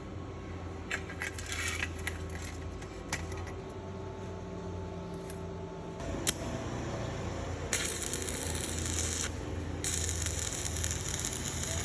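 Small metal parts clinking and tapping, then two spray hisses lasting a second or two each, over a low steady hum.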